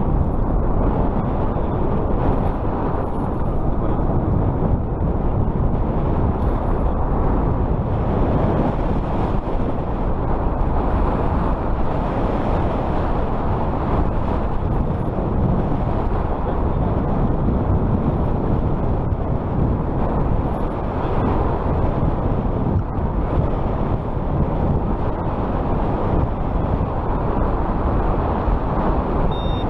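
Steady rush of wind and tyre noise from riding a fat-tire electric bike at speed, with no break or change throughout.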